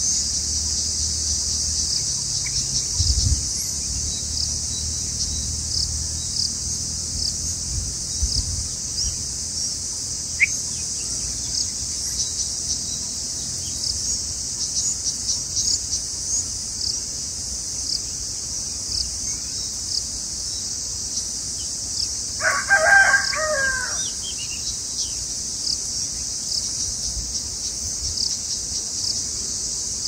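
Steady high insect drone with many scattered small bird chirps. About 22 seconds in, a loud, drawn-out call rises over it for about a second and a half.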